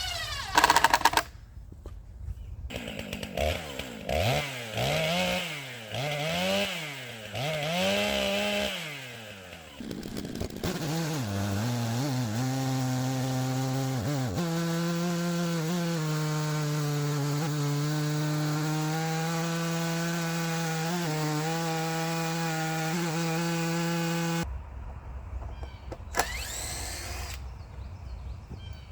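Stihl chainsaw on an Alaskan chainsaw mill, revved up and down several times, then held at a steady full-throttle pitch as it cuts lengthwise through an ash log. It stops abruptly about 24 seconds in, and a short rising whine follows near the end.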